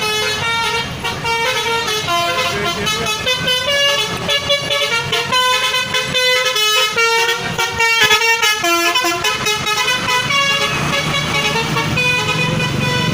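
Indonesian bus 'telolet' horn, a multi-tone musical air horn, playing a tune of quick, changing notes.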